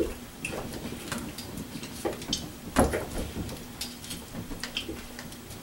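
Irregular clicks, knocks and light metallic clinks of a knife working on a tin plate, with a wood fire crackling in the hearth. The loudest is a single knock about three seconds in.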